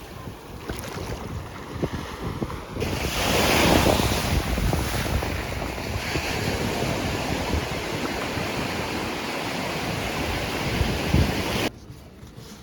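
Ocean surf washing ashore, with wind buffeting the microphone. A louder wave surges in about three seconds in. The sound cuts off suddenly near the end.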